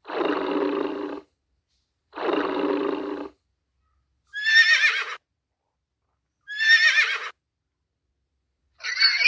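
Recorded animal calls: two lower, harsh calls about a second each, then two higher calls with a shaky, wavering pitch.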